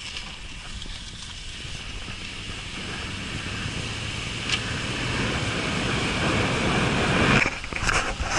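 Wind and road noise from a moving truck: a steady rush with a low rumble that slowly grows louder, then drops off suddenly near the end, followed by a few brief high sounds.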